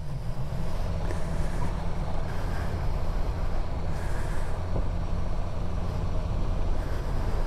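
Motorcycle riding at a steady pace, its engine running under a rumble of wind and road noise.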